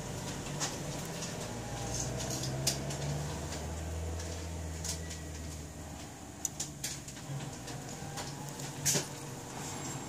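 Scattered light clicks and taps of a smartphone frame, its new screen and a glue tube being handled, with a sharper click near the end. Under them a low rumble swells in the middle and fades about six seconds in.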